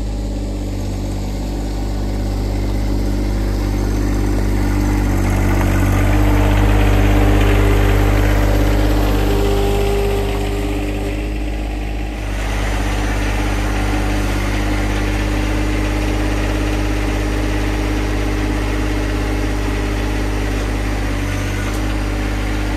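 John Deere 2025R compact tractor's three-cylinder diesel engine running steadily while it carries a log on its front loader. It grows louder toward the middle, and the sound changes abruptly about twelve seconds in.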